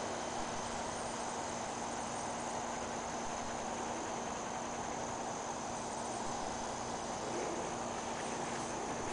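Crickets chirring steadily, a continuous high trill over an even outdoor hiss.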